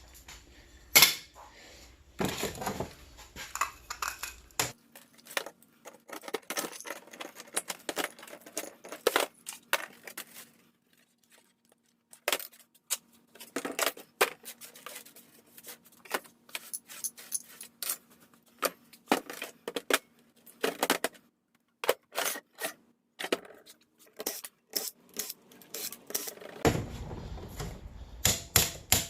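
Small pieces of scrap metal clinking and clattering as they are handled, an irregular string of sharp clinks and knocks with a short pause partway through.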